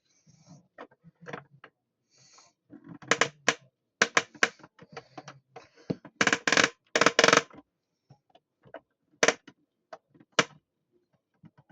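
Small plastic toy washing machine being handled: irregular clicks, knocks and rattles, with short scraping brushes between them and denser clatter around the middle.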